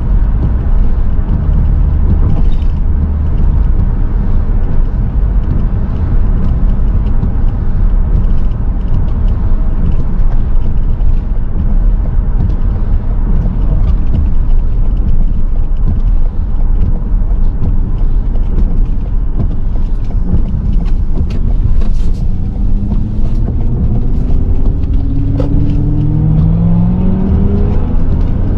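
Inside a moving car: a steady low road and engine rumble, with the windshield wipers sweeping across dry glass. Near the end the engine note rises as the car speeds up.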